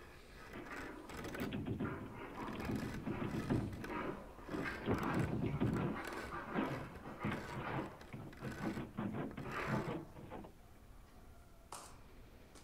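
Irregular clicking and tapping of typing on a laptop keyboard, coming in uneven runs that fade toward the end.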